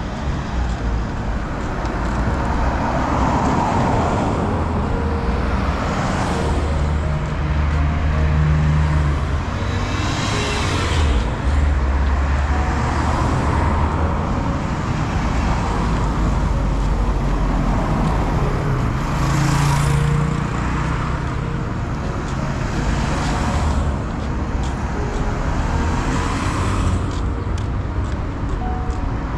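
Road traffic: a steady low rumble of vehicles, with several passing by one after another, each swelling and fading.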